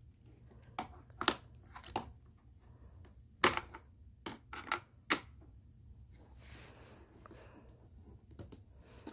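Small plastic toy figure and plastic playset pieces clicking and knocking as they are handled and set in place, a scattered series of sharp clicks, the loudest about three and a half seconds in.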